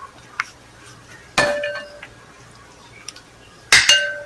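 Cookware clinking against a soup pot as the boiling ingredients are moved around: one ringing clink about a second and a half in, then three quick clinks near the end.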